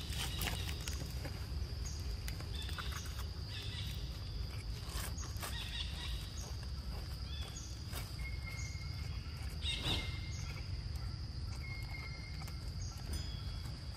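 Outdoor ambience dominated by a steady high-pitched insect drone, with short high chirps every second or so and occasional brief crackles.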